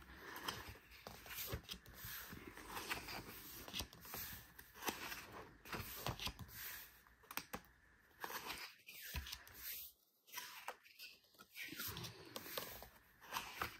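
Paper rustling and crinkling with small irregular clicks and taps as the pages of a thick, stiff album photobook are handled and pried open, growing quieter and more broken after about 8 seconds.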